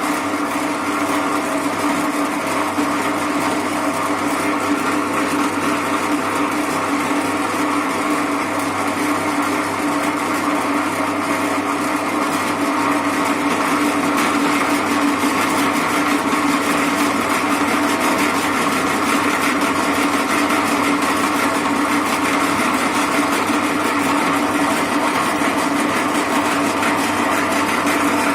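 Herless bench pillar drill running steadily while used for milling, its electric motor and spindle giving a constant hum, a little louder from about halfway through.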